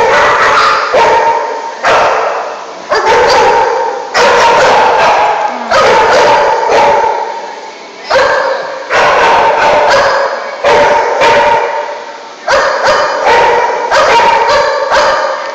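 A group of small dogs barking and yipping over one another, loud and nearly nonstop, with a fresh outburst about every second.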